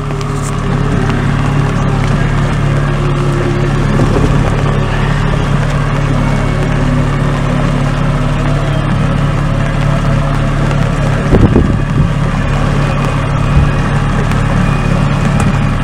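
Boat's outboard motor running steadily at low speed with a constant low hum, and a couple of brief knocks on the boat about eleven seconds in.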